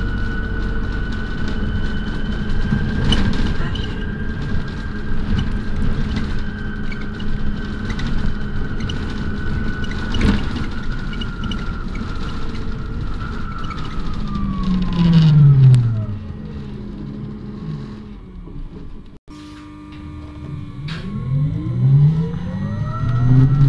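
RATP city bus heard from inside the cabin while under way: steady drivetrain rumble and road noise with a high whine. About fourteen seconds in the whine falls in pitch as the bus slows and the sound quietens. Near the end it rises again as the bus pulls away.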